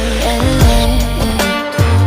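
Background pop music with a steady beat, bass and gliding melodic lines.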